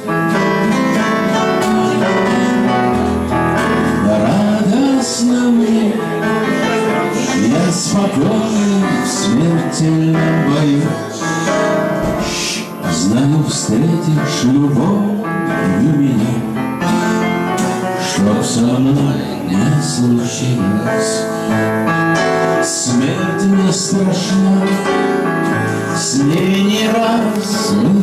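Live music: an acoustic guitar and a Yamaha electronic keyboard playing a song together, steady and full throughout.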